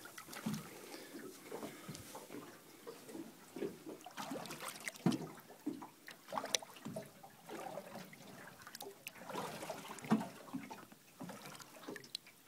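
Water lapping and splashing against the side of a boat, with small irregular splashes scattered throughout.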